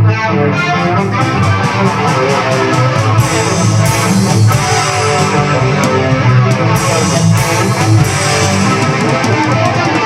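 Playback of a home-recorded multitrack song: strummed electric guitar and bass over a drum track, with the drums too quiet in the mix.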